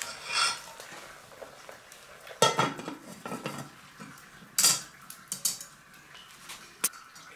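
A metal utensil clanking and scraping against an iron wok as loquat-leaf brew is stirred. There are a few separate knocks, the loudest about two and a half and four and a half seconds in, and a sharp click near the end.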